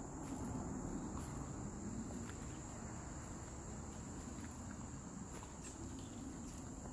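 Steady high-pitched drone of insects in summer woods, with footsteps crunching on a leaf-litter path.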